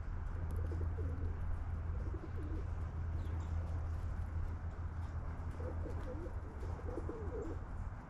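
Pigeons or doves cooing in four short, low phrases, with a few faint high bird chirps and a steady low hum underneath.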